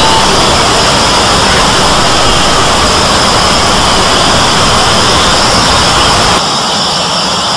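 A loud, dense wall of noise from many video soundtracks playing over one another at once, blended so thickly that no single voice or tune stands out. The noise drops a step in level about six and a half seconds in.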